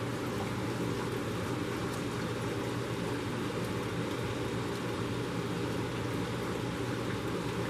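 Hobart LXiH dishwasher running: a steady pump hum under the even wash of water spraying inside the machine.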